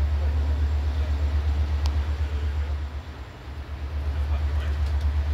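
Low, steady rumble of a diesel locomotive engine running, with an even pulsing beat that eases briefly about three seconds in. A single sharp click about two seconds in.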